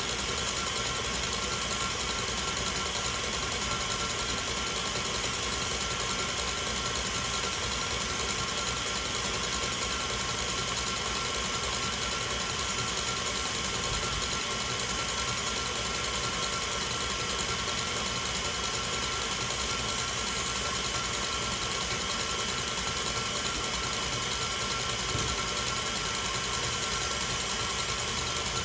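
Electric mixer running steadily at high speed (setting 7), its whisk beating Swiss meringue toward stiff peaks: a steady motor whine.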